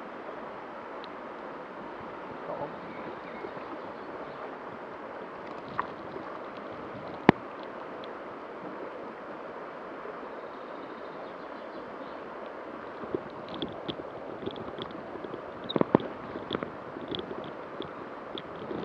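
Shallow river flowing over a stony bed, a steady rush of water. A single sharp click about seven seconds in, and a cluster of small knocks and clicks near the end.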